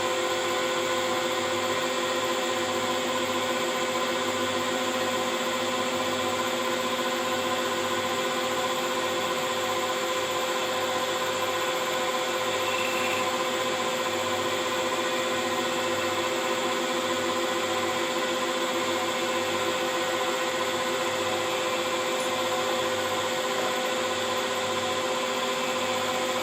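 Metal lathe running steadily while turning a cold-rolled steel bar, a continuous machine hum with a few fixed steady tones.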